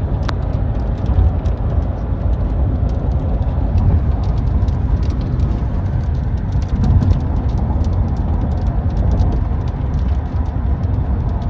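Heavy rain heard from inside a car: a steady low rumble with scattered sharp ticks of drops striking.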